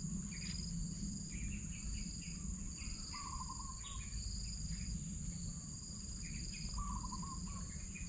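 Tropical wetland-forest ambience: a steady high-pitched insect drone, with a second insect pulsing in short trills about once a second. Birds call over it in scattered short chirps, and twice in a lower whistled phrase.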